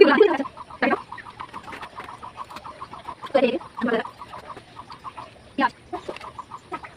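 A rapid, even run of short repeated animal calls, about eight to ten a second, for the first few seconds. Over it come a few brief bursts of voices, the loudest right at the start.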